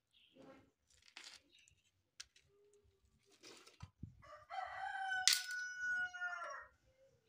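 A rooster crowing once: one long call of about two and a half seconds in the second half, after a few brief scratchy noises.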